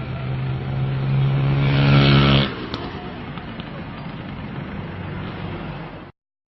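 A motor vehicle engine running with a steady hum, growing louder and then cutting off abruptly about two and a half seconds in. A steady background noise follows, and the sound stops completely shortly before the end.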